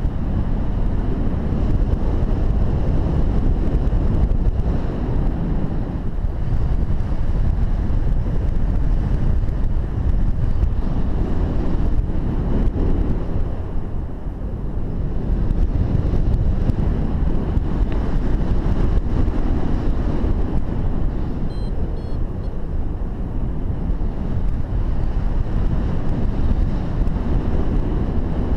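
Airflow buffeting the camera microphone of a paraglider in flight: a steady low rushing rumble of wind that swells and eases, dipping briefly about halfway through.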